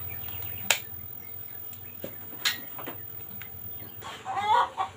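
Chickens clucking in the background, with a louder bending call near the end. Two sharp clicks come earlier, about two seconds apart.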